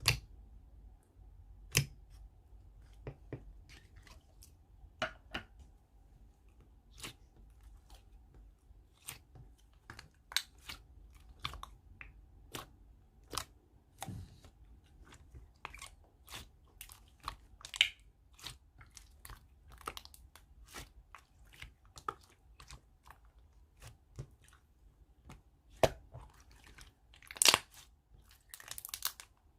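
Close-up eating sounds: chewing, with many separate sharp clicks like cutlery on a plate, and a longer rustling stretch near the end.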